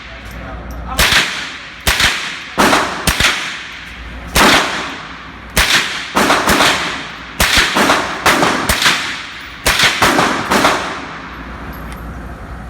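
Smith & Wesson M&P 15-22 semi-automatic .22 LR rifle firing a string of about fifteen shots, some singly and some in quick doubles and triples, each with a short echo. The shooting stops about eleven seconds in.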